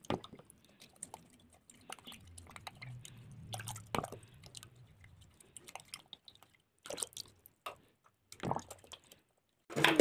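Eggshells being rinsed and handled at a sink: scattered light clicks and taps of thin shell, with dripping water.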